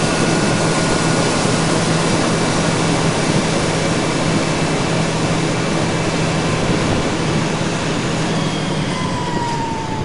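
John Deere WTS 9680 combine harvester running with its unloading auger turning, emptying the grain tank as grain pours from the spout. The steady machine noise eases slightly toward the end as the grain runs out, and a falling whine comes in near the end.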